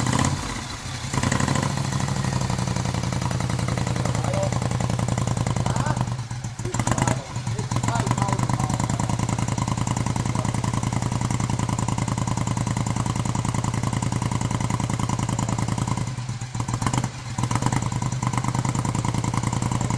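Moto Guzzi Ambassador V-twin, freshly rebuilt to about 950 cc, running on its first start with a steady pulsing exhaust note. The revs sag briefly twice, around six and sixteen seconds in, then pick up again. The motor is tight on its new rings and won't yet settle to an idle.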